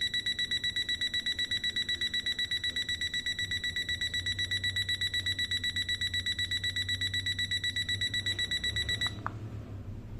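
IKEA Kupong alarm clock's electronic alarm sounding as a rapid, evenly repeating high-pitched beep on one steady pitch. It cuts off abruptly about nine seconds in, followed by a brief click.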